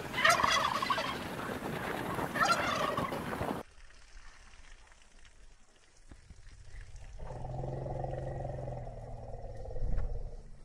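A tom turkey gobbling twice, about two seconds apart, over wind-like noise; the sound stops abruptly a little over a third of the way in. Later a low, steady droning tone lasts about two seconds, followed by a thump.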